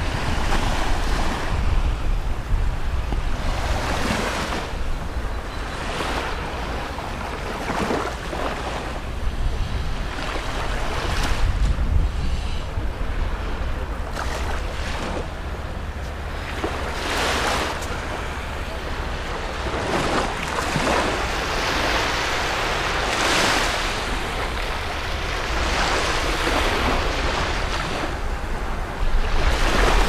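Small waves breaking and washing up a sandy beach, each wash swelling and fading every few seconds. Wind buffets the microphone as a low rumble underneath.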